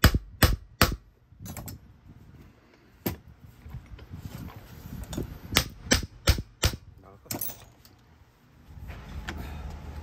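Sharp metal clanks and knocks as the housing and parts of a Hitachi S12-88 starter motor are handled and its field yoke is pulled off the armature. The clacks come in a cluster at the start and another about five to seven seconds in, and a steady low hum sets in near the end.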